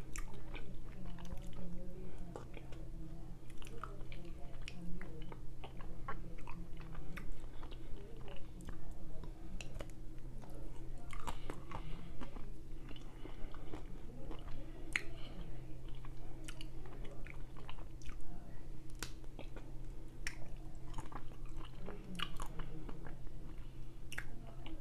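Close-miked biting and chewing of a chocolate-coated ice cream bar, with scattered crunches and sharp mouth clicks throughout, over a low steady hum.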